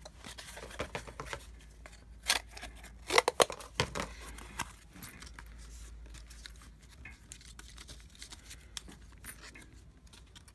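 Scissors snipping through card a few times, about two to four seconds in, then lighter rustling and tapping of paper and cardboard pieces being handled.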